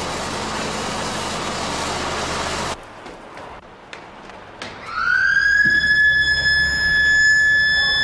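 A steady rushing noise that stops abruptly, then a siren winds up to a high, steady wail with overtones and holds it.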